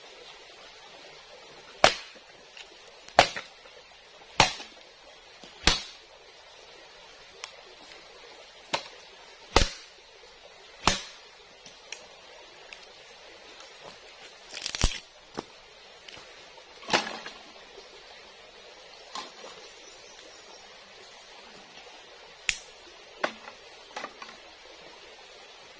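Dry bamboo being snapped by hand: about a dozen sharp cracks at uneven intervals, a few of them in quick pairs.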